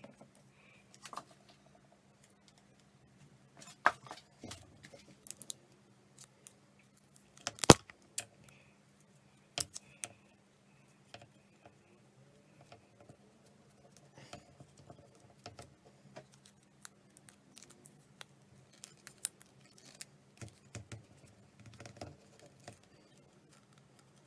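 Handling noise of hands pressing and smoothing vinyl wrap onto a tennis racket frame: scattered clicks, taps and light rustles, the sharpest about eight seconds in. A faint steady low hum runs underneath.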